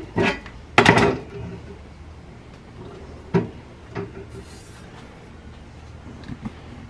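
Steel frame plates and a C-clamp knocking and clanking on a workbench as the clamp is set, the loudest clatter about a second in and a few lighter knocks later.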